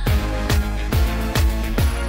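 Electronic dance music with a steady kick-drum beat, a little over two beats a second, under held synth notes.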